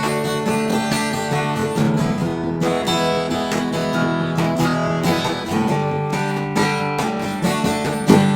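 Background music: acoustic guitar strumming and plucking a steady chord pattern.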